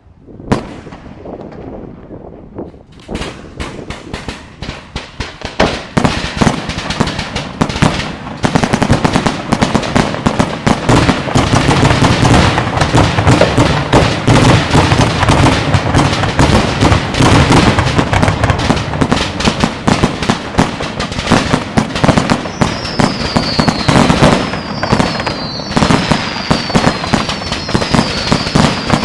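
Castiglione aerial fireworks: a single bang about half a second in, then rapid reports that build into a dense, continuous barrage of bangs and crackle. In the last quarter, a series of repeated falling whistles sounds over the barrage.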